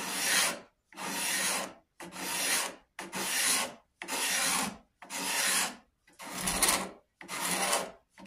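Steel cabinet scraper shaving a red oak bow limb in steady strokes, about one scrape a second with a short pause between each: wood being taken off the limb to tiller it and correct a twist.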